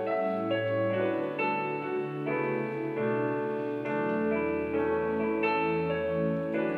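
Piano played live on a stage keyboard: slow held chords and melody notes, with deeper bass notes joining about four seconds in.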